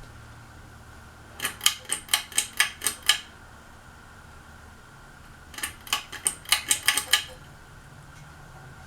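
Steady hum of a running ceiling fan, broken twice by a quick run of sharp metallic clinks, about eight each lasting a second and a half: once about a second and a half in, and again a little past the middle.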